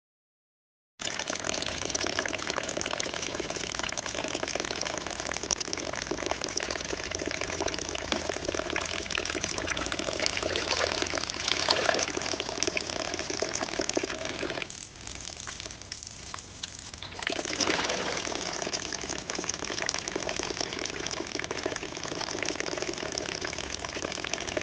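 Steady rushing, gushing water noise that starts abruptly about a second in, dips quieter for a couple of seconds about fifteen seconds in, then comes back.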